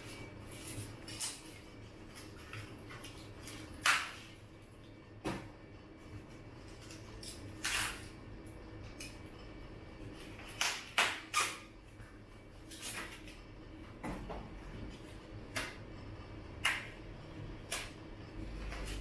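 Handling noises from unpacking a folding bicycle: packing material being pulled off the frame and parts being moved, heard as about a dozen scattered short rustles, clicks and knocks, the loudest about four seconds in and a cluster around eleven seconds.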